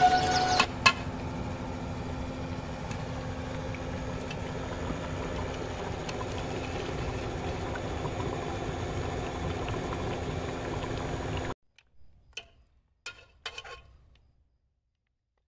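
Desi chicken qorma bubbling in an open aluminium pressure cooker over a fire while a ladle stirs it: a steady hiss with a low hum under it, cut off abruptly about eleven and a half seconds in. A few faint clinks of the ladle against the pot follow.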